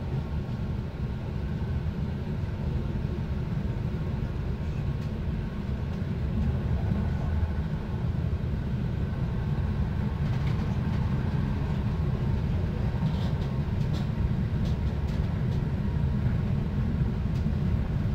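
Steady low rumble of a moving train heard from inside the carriage, its wheels running on the track, with a few faint clicks in the second half.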